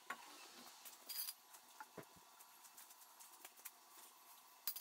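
Faint clinks, scrapes and a couple of light knocks from a sledgehammer and steel sweeper-broom parts being handled and set down on a concrete floor. A short rustle comes about a second in, the two knocks about two seconds in, and a few small clicks near the end.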